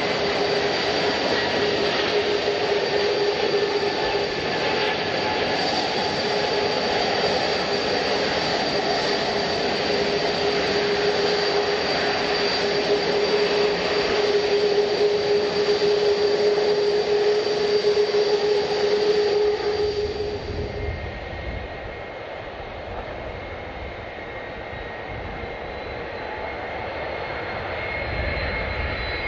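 Jet airliner engines running loud, with a steady whine over the noise. About twenty seconds in, the high part drops away suddenly and a quieter low rumble is left.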